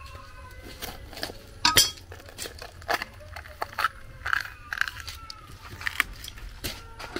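A series of irregular clinks and knocks, a few with a short metallic or glassy ring, the loudest near the second mark.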